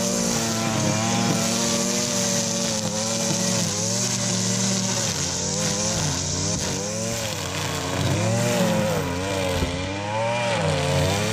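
Gas-powered string trimmer running hard while cutting tall grass, its engine pitch dipping and rising again and again as the line works through the growth, over a steady high whirring hiss.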